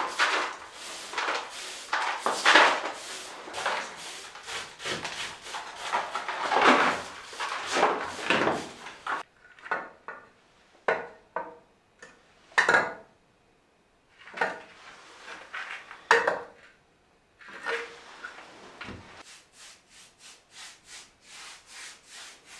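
Flagstones and a hand tool scraping and knocking while a stone floor is laid in mortar. A dense run of scrapes and knocks fills the first nine seconds, then single knocks come a second or two apart, and near the end there is a row of light taps about two a second.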